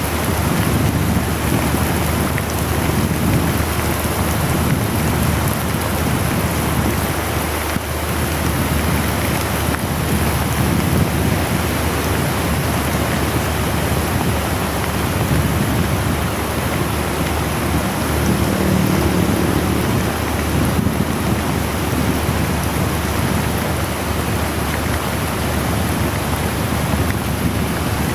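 Very heavy rain pouring down in a steady, loud hiss, heard from a moving motorcycle, with a low rumble underneath.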